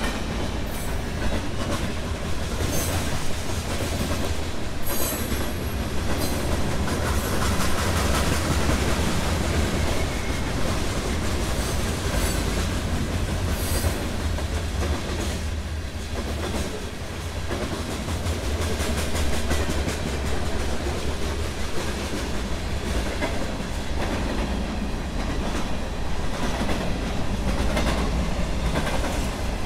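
Train passing close by at a grade crossing: a steady, loud low rumble with wheels clicking over the rail joints, plus a few brief high squeaks in the first half.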